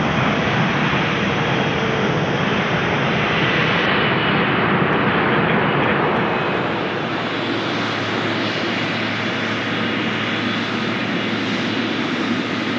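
Loud engine noise from a wide-body jet airliner flying low overhead on final approach to land, easing off slightly about six seconds in.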